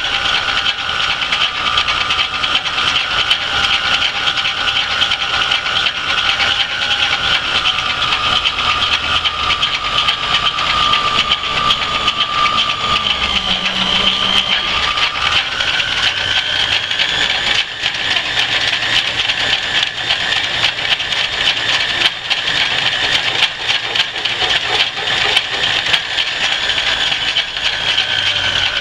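Antique Rockford lathe running under load while a twist drill in the spindle chuck bores into a steel fixture: a steady machine hum with a hissing cutting noise and a high tone that sinks slightly around the middle, then rises again.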